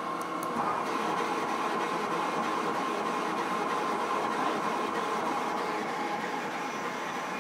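Epilog laser cutter running an engraving job: a steady mechanical whir with a faint high tone, slightly louder from about a second in.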